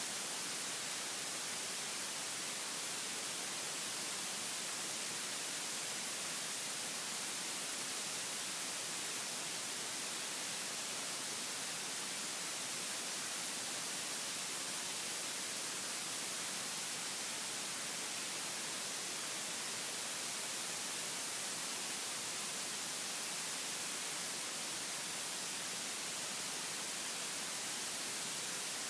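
Steady, even hiss, brightest in the high end, with no other sound rising above it: the recording's own noise.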